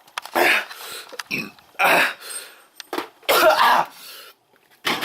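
A person coughing and clearing his throat in several harsh bursts after eating Carolina Reaper peppers, a reaction to the burning heat of the chilies.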